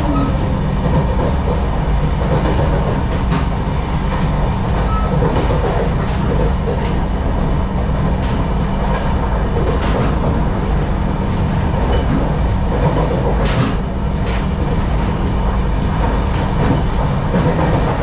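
Express train running at speed, heard from inside a coach: a steady rumble with occasional sharp clicks of the wheels over rail joints.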